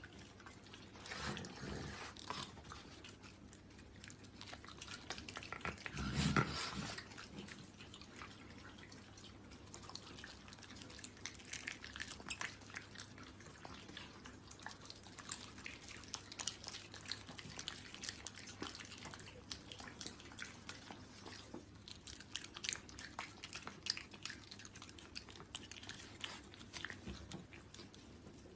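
Raccoon chewing food taken from a hand: faint, irregular bites and mouth clicks, with a louder noise about six seconds in.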